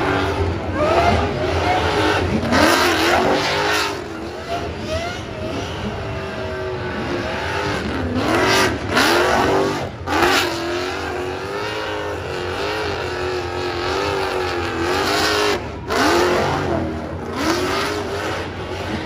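Supercharged burnout car's engine revved hard and held high while the rear tyres spin in a burnout. The note rises and falls every second or so, with a few brief sharp cuts in the sound.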